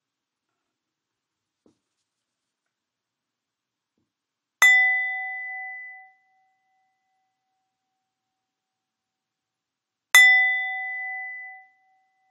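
A small bell or chime is struck twice, about five and a half seconds apart. Each strike gives a clear, bright ring that dies away in about a second and a half.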